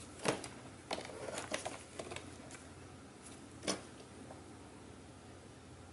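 Scattered light clicks and taps of a MacBook Pro's aluminium top case being handled and worked loose, about half a dozen small knocks, the loudest near the end of them.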